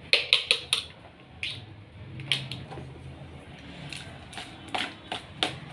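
Sharp taps and knocks of kitchen utensils against a mixing bowl: four quick taps as batter is knocked off hand-mixer beaters, then a spatula tapping and scraping the bowl about once a second while cake batter is poured into a baking tin.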